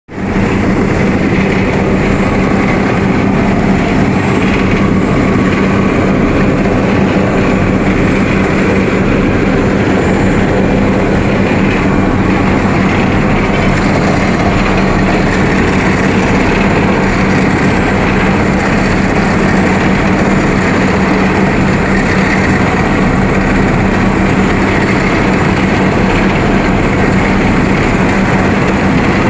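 Asphalt paver running steadily at work: a heavy diesel engine and its machinery make a constant loud drone with a steady low hum, unchanging throughout.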